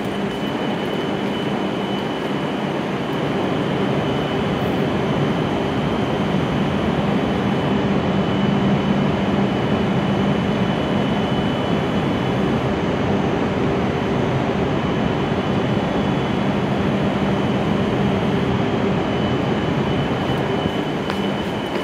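E7-series Shinkansen train standing at the platform with its doors open, its onboard equipment running steadily: a low hum with a faint high whine.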